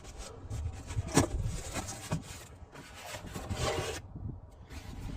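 Packaging being handled and rummaged through: rubbing and rustling with several knocks, a sharp one about a second in, quieter after about four seconds.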